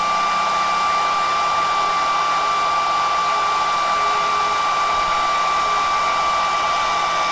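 Heat gun running steadily with a high whine over its blowing, shrinking heat-shrink tubing over a spliced power wire.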